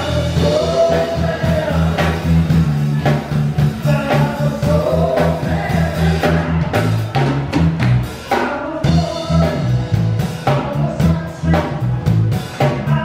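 Live band playing an up-tempo song: a singer over a drum kit and a steady, pulsing bass line.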